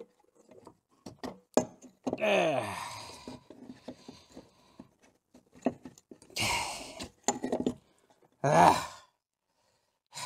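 A man grunting and sighing with effort as he works a seized water pump free of a car engine block, mixed with scattered metallic clicks and knocks from the tools and parts. The two loudest grunts come about two seconds in and near the end.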